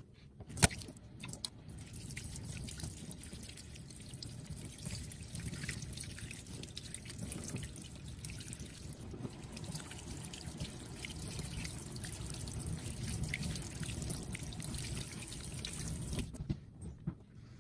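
Kitchen tap running in a thin stream onto a bare-rooted Pachypodium densiflorum caudex in a stainless-steel sink while it is scrubbed with a toothbrush. A sharp knock comes under a second in, and the water stops about a second before the end.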